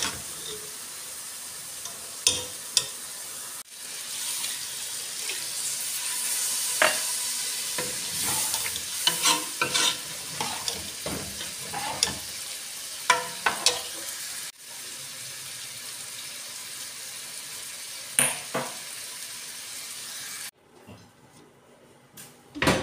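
Steel spoon stirring chickpeas in an aluminium pressure-cooker pot over a steady frying sizzle, with repeated clinks and scrapes of the spoon against the pot. The sizzle stops about twenty seconds in, and a single clink follows near the end.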